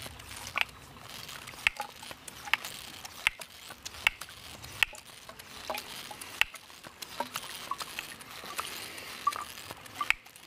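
Katadyn ceramic hand-pump water filter being pumped, with a squeaky click on each stroke, a little more than one a second, over the steady rush of a shallow stream.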